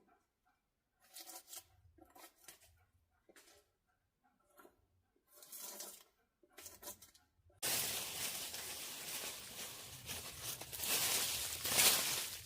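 Short bursts of tearing, crunching handling noise with quiet gaps between them. About eight seconds in, a steady rushing hiss starts abruptly.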